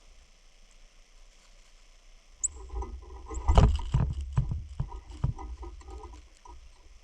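A gust of blizzard wind rumbling on the microphone about two and a half seconds in, with a quick run of sharp knocks and clicks over about three seconds, loudest about a second after the rumble starts.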